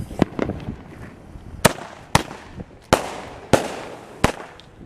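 A consumer firework cake firing: about six sharp bangs, unevenly spaced half a second to a second apart, each trailing off in a brief fading crackle.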